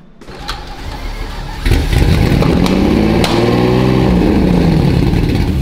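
A Lamborghini Murciélago V12 cranks on the starter, catches about a second and a half in, revs up and then drops back. The fault on cylinder 2's fuel injector circuit is still there.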